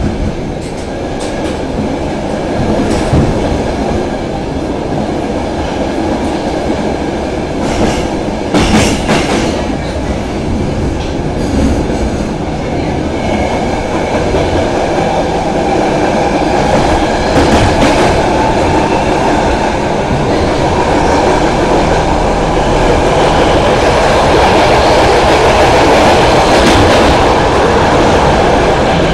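A Stockholm Metro C6 train car running on the rails, with a steady rumble and a few sharp clicks from the wheels. The running noise grows louder over the second half.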